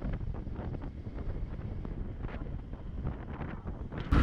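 Wind rumbling on the microphone, with no clear source standing out from it. The sound jumps suddenly louder right at the very end.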